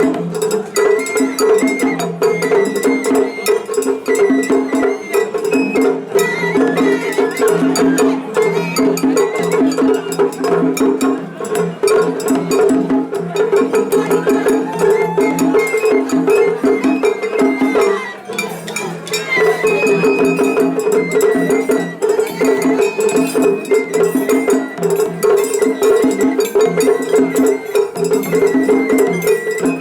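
Japanese festival hayashi ensemble playing: a high bamboo flute melody over rapid drumming and the bright clanging of a small hand gong, briefly thinning about two-thirds of the way through.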